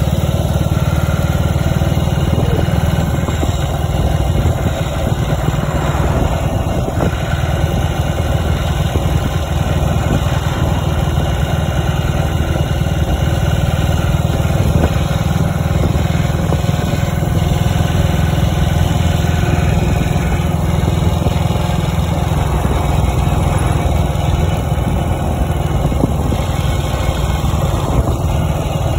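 A classic motorcycle's engine running steadily while the bike rides along at road speed.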